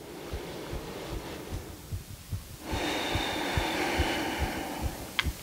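A woman's long, audible breath starting about halfway through, over soft low thumps that repeat a few times a second.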